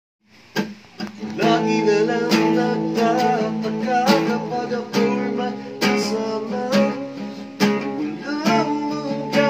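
Acoustic guitar strummed in a steady rhythm, starting about half a second in, with a man singing along.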